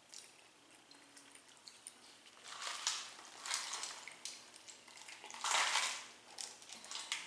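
Eating and food-handling noises: a few short, noisy bursts of handling food and dishes, with a louder cluster about two and a half seconds in and another near six seconds.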